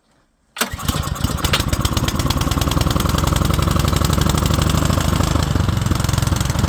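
Toro 1028 HD snowblower's single-cylinder four-stroke engine catching about half a second in and then running steadily on full choke and full throttle, with a fast even pulse. It is a cold start, its first of the season.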